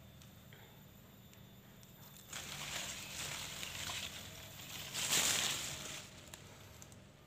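Leaves rustling as leafy branches are brushed through at close range: a burst of rustling starts about two seconds in, peaks near the end and dies away, over a faint steady low hum.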